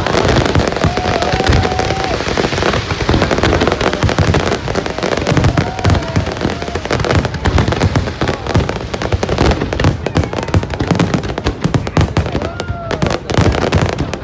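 Fireworks display: a dense, continuous barrage of bangs and crackles, many a second, without a break.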